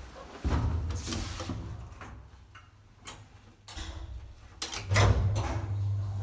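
Old Schlieren traction elevator heard from inside the cab: clicks and clunks from its controls and doors. A low hum of the hoist machine comes in twice, the second time with a loud clunk about five seconds in, and keeps running as the car starts to travel.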